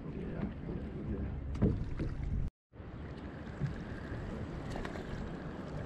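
Wind on the microphone and water against the hull of a fishing boat, with a single knock about one and a half seconds in. The sound drops out completely for a moment about two and a half seconds in.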